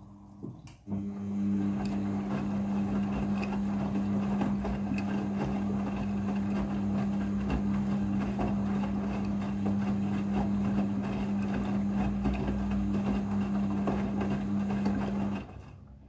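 Midea front-loading washing machine turning its drum during the rinse: a click, then about a second in the motor starts with a steady hum while the wet clothes tumble and slosh in the drum. The motor cuts off shortly before the end, as the drum pauses between turns.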